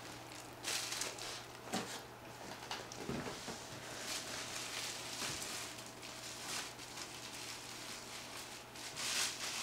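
Clear plastic wrapping around 3D-printer extruder heads rustling and crinkling as it is handled and pulled open, in irregular bursts, loudest near the end. A faint steady hum runs underneath.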